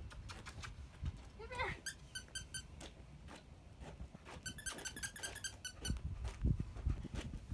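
Footsteps on a concrete driveway, with two quick runs of short high squeaks, about two seconds in and again around four and a half seconds; the footsteps get louder near the end.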